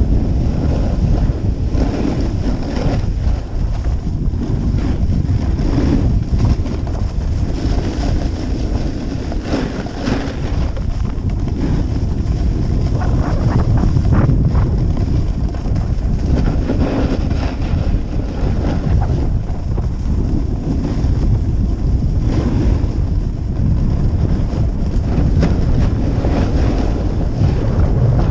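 Wind buffeting the microphone of a camera carried downhill at skiing speed: a steady, loud low rush. Now and then the edges scrape and hiss on packed snow through the turns.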